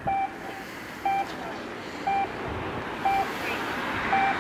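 Electronic race timer beeping once a second: five short, identical mid-pitched beeps, of the kind that count down the start of a radio-sailing race.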